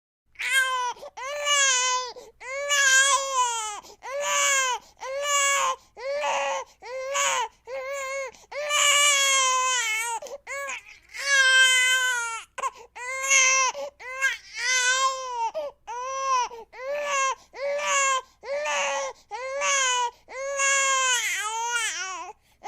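Baby crying: a steady run of about twenty high wails, each about a second long, broken by short breaths.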